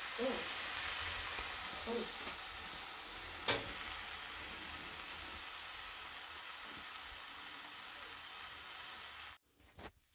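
Slices of bread sizzling as they fry in a non-stick frying pan, a steady hiss, with one sharp click about three and a half seconds in. The sizzle stops abruptly near the end.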